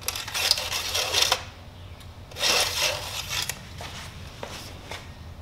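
Engine oil dipstick of a VW Beetle 2.0 L being wiped with a shop towel and slid into and out of its tube: two bursts of rubbing and scraping, the second starting a little over two seconds in.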